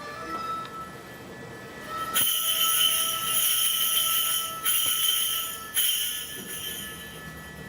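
Kagura suzu, a Shinto shrine bell-tree, shaken in repeated surges: a bright, sustained jingling that swells suddenly about two seconds in, pauses briefly twice and fades near the end. This is typical of the bell blessing given over worshippers during a prayer rite.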